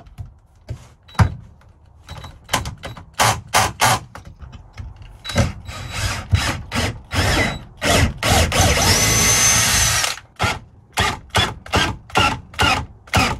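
DeWalt cordless drill-driver run in many short trigger bursts, with one longer steady run of about two seconds past the middle, as it works at the mounting base of a bench vise.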